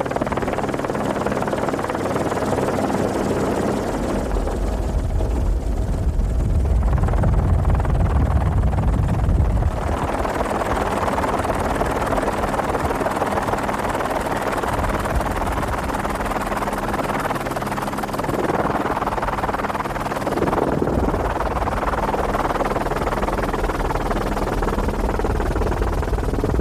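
Continuous helicopter rotor and engine noise with a heavy low rumble, mixed with wind, which gets deeper and louder between about 4 and 10 seconds in.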